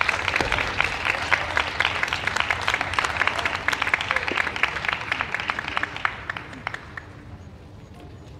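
Spectators applauding in an arena, a dense patter of many hands clapping that thins out and dies away about six or seven seconds in.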